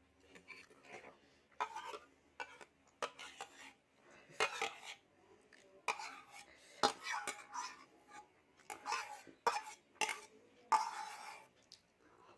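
Eating from a plate: irregular clinks and short scrapes of cutlery against the dish, coming every second or so with mouth sounds between.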